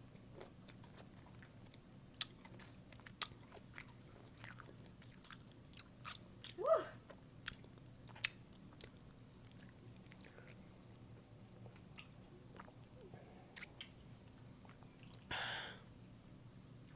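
Biting and chewing sour pickles: scattered wet crunches and mouth clicks. A brief hum comes about seven seconds in, and a short breathy hiss near the end.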